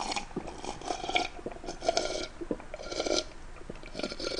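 A person gulping a pulpy kiwi ade from a glass close to the microphone, one swallow after another, with small mouth and glass clicks between the gulps.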